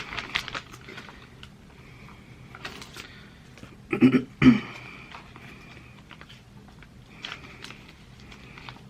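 Crinkling and rustling of a sheet mask's plastic protective film and packaging being peeled and handled, in scattered small clicks and crackles, with a louder double rustle about four seconds in.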